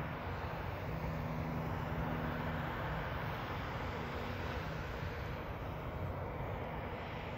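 Diesel engines of a Hitachi excavator and a dump truck working in a sand pit: a steady drone with a low engine hum that is strongest between about one and three seconds in.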